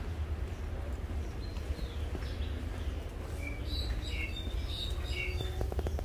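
Small birds chirping, a quick run of short high notes from about halfway through, over a steady low rumble.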